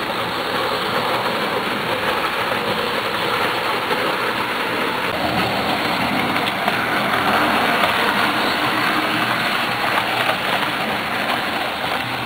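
HO scale model train running on the layout: a steady whirring rumble of the small motor and wheels rolling on the rails, growing somewhat louder about halfway through.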